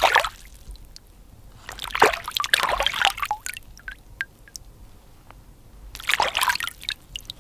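Hands swishing and rubbing soft-shell clams in shallow tide-pool water to wash the sand out of them: splashing and sloshing in three bouts, at the start, about two seconds in and near the end, with a few small clicks in between.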